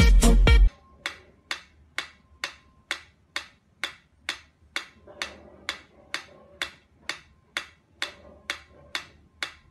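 Mechanical pyramid metronome ticking steadily at about two ticks a second, after a snatch of music that cuts off less than a second in.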